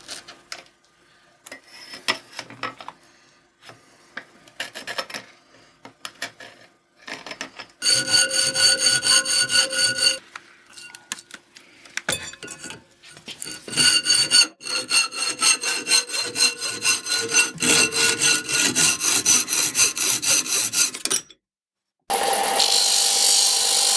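Hacksaw cutting a 10 mm square aluminium profile clamped in a vise. A few light clicks and taps come first. Then comes a short run of sawing strokes and a longer, quicker run, with the metal ringing on each stroke. After a brief break near the end there is a last burst of sawing as the cut goes through.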